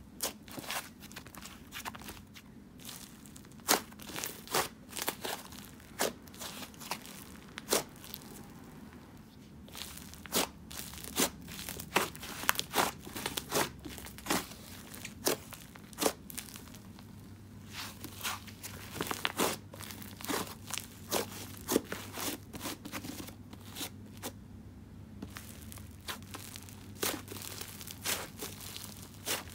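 Dusty pink butter slime being kneaded, pressed and fluffed by hand, giving off irregular sharp crackling pops and clicks, the slime's sizzles. A few brief quieter stretches fall between the runs of pops.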